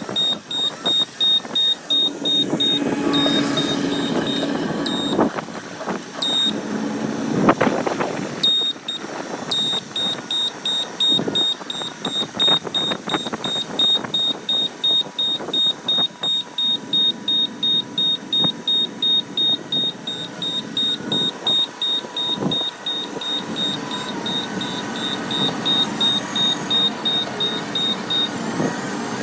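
Caterpillar wheel loader reversing with its backup alarm beeping about twice a second over its running diesel engine; the beeping stops near the end. A heavy clunk stands out about seven and a half seconds in.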